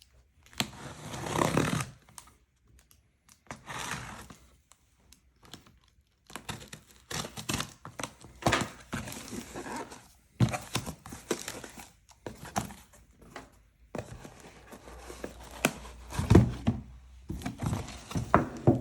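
A cardboard shipping carton being opened by hand: tape tearing and cardboard flaps rustling and scraping in irregular bursts, with clicks, and a heavy thump near the end as the box inside is handled.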